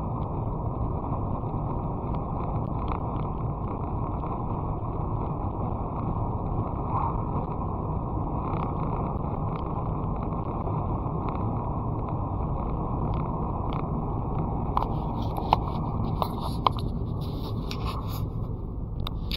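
Steady road and engine noise of a car being driven, heard from inside the car, with scattered light clicks and rattles in the last few seconds.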